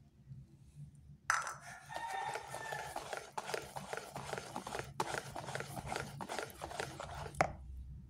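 A rooster crows in the background, starting about a second in. It lies over the irregular scraping and tapping of a metal whisk stirring batter in a bowl.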